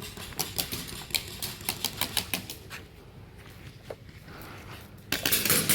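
Airsoft guns firing: a string of sharp, irregular clicks and snaps, turning into a louder, denser rattle near the end.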